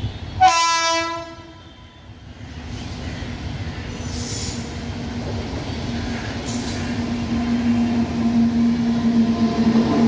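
Indian Railways electric locomotive sounding one loud horn blast of about a second as it approaches. The train's rumble and a steady hum then grow louder as it comes close.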